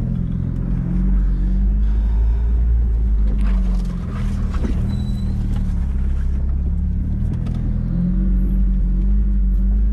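A Jeep Wrangler TJ's engine running steadily as the Jeep drives along a rough forest dirt track, heard from inside the cabin. A few sharp knocks and rattles come over bumps around four seconds in.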